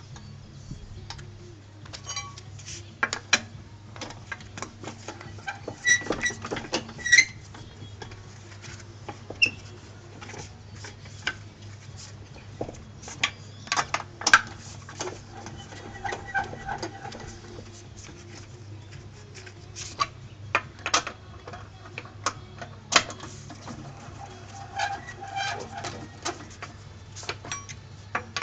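Irregular metallic clicks, clinks and knocks of tyre-changing work, some ringing briefly, over a steady low hum.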